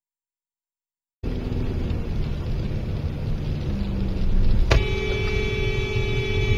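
Road and engine noise inside a moving car, starting abruptly after a second of silence. About three and a half seconds later a click is followed by a steady, held car horn.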